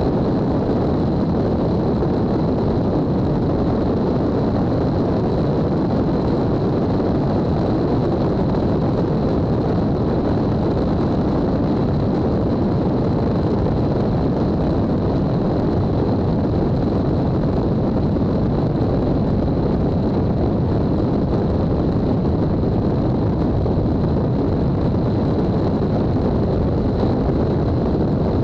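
Steady, loud rush of wind and engine-and-propeller noise from a light fixed-gear airplane in low cruising flight, heard through a camera mounted outside the aircraft. A faint steady high tone runs through it.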